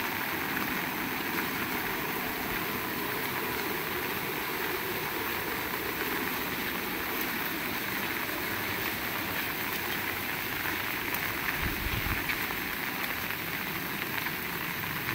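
Heavy rain falling steadily, a dense even hiss, with a brief low rumble near the end.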